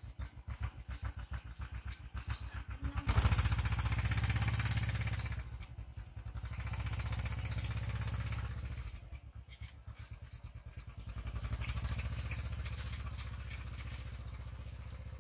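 Small motorbike engine idling with an even putter, then revving up sharply about three seconds in. It eases off and picks up twice more, then fades as the bike rides away.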